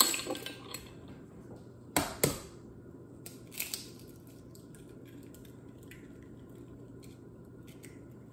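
Egg and eggshell taps and cracks against glass and metal mixing bowls: a few sharp clicks, with the loudest a quick double knock about two seconds in and a smaller pair a little later.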